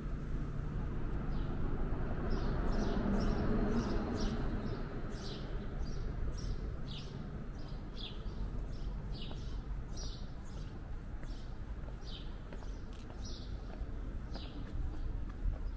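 A small bird chirping over and over, short high chirps that each fall in pitch, more than one a second, over a steady low hum of city background noise that swells briefly a few seconds in.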